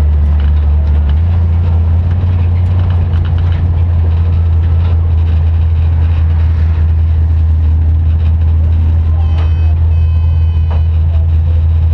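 Race car's engine heard loud from inside the cockpit, running at a steady idle with a deep, even drone. A brief high-pitched beeping comes in near the end.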